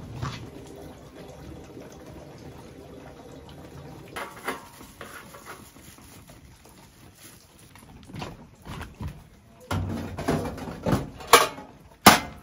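Handling noises in a quiet tent: scattered knocks and clatters as objects are handled and set down, with footsteps on a wooden deck. The sharpest two clacks come near the end.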